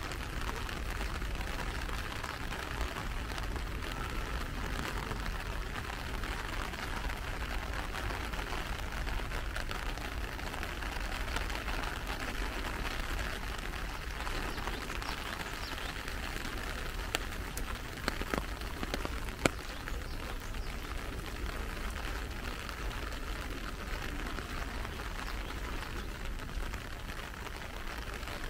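Steady rain falling. A few sharp ticks stand out about two-thirds of the way through.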